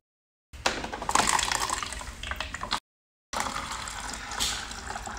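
Water pouring from a water dispenser's spout into a foam cup, a steady splashing hiss. The sound drops out to silence twice, briefly.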